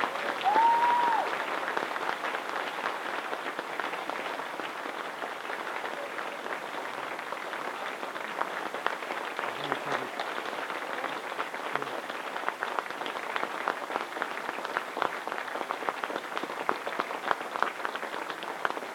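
Audience applauding, a dense patter of many hands clapping. A short whistle rises and falls about half a second in.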